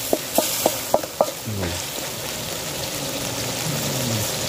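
Freshwater snails in their shells sizzling in a wok over a wood fire while being stirred, with about five sharp knocks against the wok in the first second and a half, then a steady sizzle.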